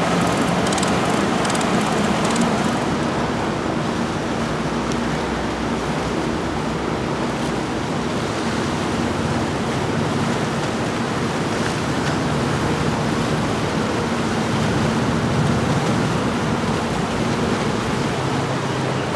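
Steady drone of a powerboat's outboard engines running past, mixed with the rush of its wake and wind on the microphone. For most of it this is the MTI 390X catamaran's twin outboards; in the first couple of seconds it is the quad-outboard Cigarette 59 Tirranna.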